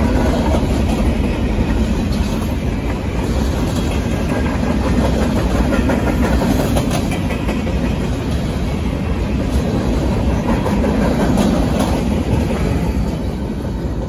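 Freight cars of a Union Pacific mixed freight train (boxcars and centerbeam flatcars) rolling past at close range: a steady rumble of steel wheels on the rails, with scattered sharp clanks.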